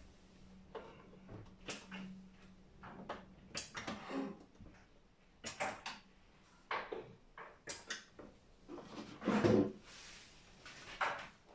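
Irregular plastic clicks and knocks from a consumer unit (fuse board) being handled and worked loose by hand, with a louder, longer knock about nine seconds in as the unit is lifted out of its wall cabinet.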